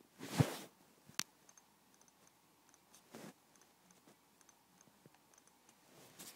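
Aluminium body of a 15-inch 2010 MacBook Pro creaking when pressed, a strange metallic creak: one loud creak just after the start, a sharp click about a second in, and softer creaks around three seconds and near the end.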